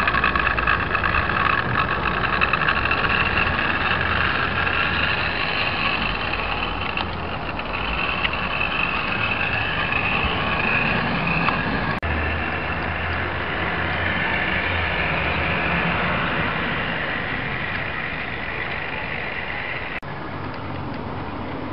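Model locomotive running on garden track: the steady whine of its small electric motor over a low rumble of wheels on rail. The sound shifts abruptly about twelve seconds in, and the high whine stops near the end.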